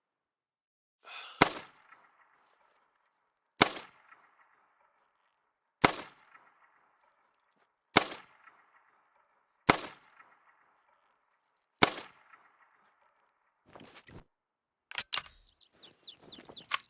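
.22 LR rifle fired six times at a steady pace about two seconds apart, each sharp crack trailed by a short echo. A few lighter clicks and rattles follow near the end.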